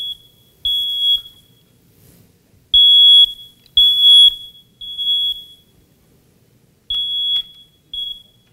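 Smoke alarm sounding its high-pitched alarm beep in the standard three-beep pattern: groups of three half-second beeps with a longer pause between groups. The last beep is cut short near the end.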